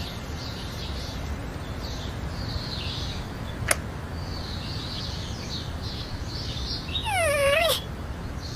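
Outdoor ambience: a steady low rumble with faint bird chirps. About seven seconds in comes a single short, wavering animal cry.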